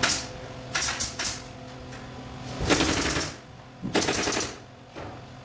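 Pneumatic nail gun firing off-camera into a timber frame: two short bursts near the start, then two longer runs of rapid shots about three and four seconds in.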